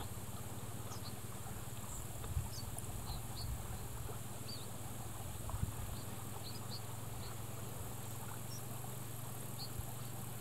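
Outdoor ambience: scattered short, high chirps and ticks with no regular rhythm over a steady low hum, with a few soft thumps.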